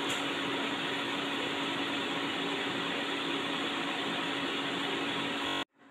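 Oil sizzling steadily around halved boiled eggs frying in a pan, with a faint steady hum beneath; the sound cuts off suddenly near the end.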